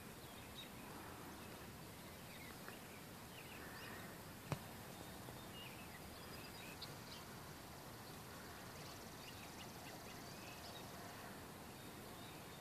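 Faint, steady background hiss with scattered faint, short high chirps and a single sharp click about four and a half seconds in.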